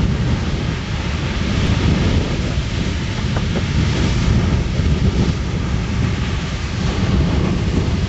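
Beehive Geyser in full eruption: its jet of water and steam rushing steadily out of the cone, a loud, continuous roar with a deep rumble under a spray-like hiss.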